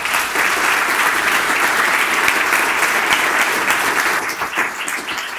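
Audience applauding: a dense, steady clapping from a roomful of people, easing off slowly in the last second or two.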